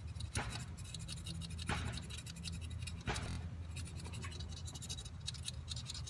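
Irregular scraping and scratching on a hard surface by hand, with a few sharper strokes, over a steady low hum.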